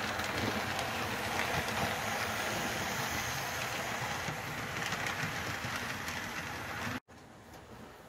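HO-scale model freight train rolling past on the track, its small wheels making a steady rolling noise. About seven seconds in, the sound drops abruptly to a much fainter rolling sound.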